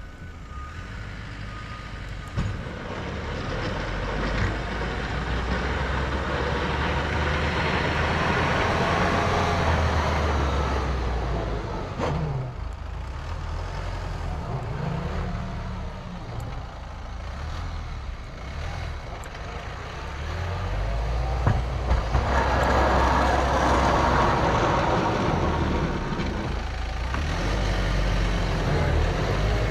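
Kubota M5-091 tractor's four-cylinder diesel engine running under load while pushing snow with a sectional snow pusher, its rumble swelling and easing twice along with a rushing, scraping noise from the pusher on the pavement.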